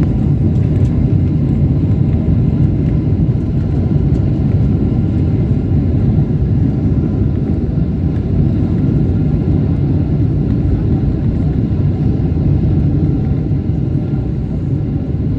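Cabin noise inside a Boeing 777-300ER rolling along the runway just after landing: a loud, steady low rumble of wheels and engines that eases slightly near the end as the jet slows.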